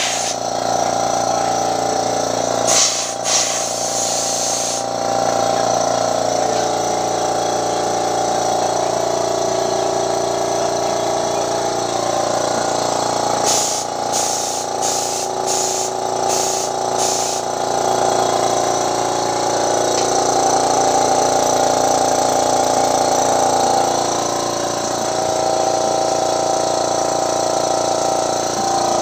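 Pressure washer running steadily, its motor and pump giving a constant hum. The spray hisses in bursts as the trigger is worked: once for about two seconds near the start, then five quick bursts in a row about halfway through.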